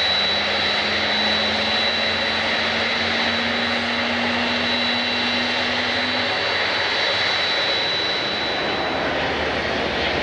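Airliner engines running: a steady rushing noise with a thin high whine that fades out near the end, and a faint low hum that rises slightly in pitch until about six seconds in.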